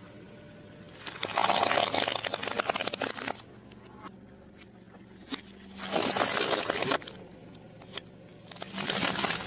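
Car tyre rolling over and crushing hollow plastic toys in a net bag: three bursts of crackling, snapping plastic, the first about a second in and lasting about two seconds, the others shorter, over a low steady hum.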